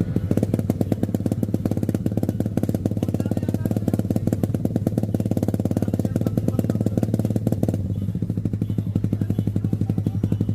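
Suzuki Raider 150 motorcycle engine running through an aftermarket Akrapovic exhaust, a fast, even exhaust pulse. It is held at raised revs, then eases back to a lower, duller run about eight seconds in.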